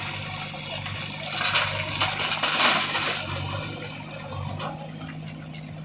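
JCB 3DX backhoe loader's diesel engine running steadily while a bucketload of broken stone pours and clatters into a tractor trolley, loudest between about one and three seconds in.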